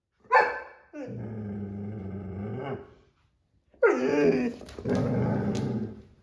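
Irish Setter vocalizing: a sharp bark, then a low, drawn-out growl lasting about two seconds. About four seconds in comes a second bark that runs into a rougher growl.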